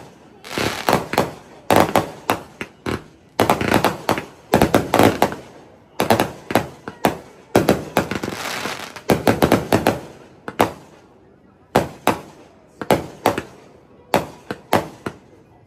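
Aerial fireworks bursting in quick succession: volleys of sharp cracks and pops, with a stretch of hissing crackle about halfway through.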